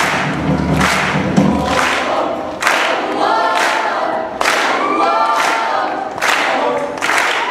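High school show choir singing in harmony, with sharp accents on a regular beat about once a second; the low bass notes drop out about two seconds in.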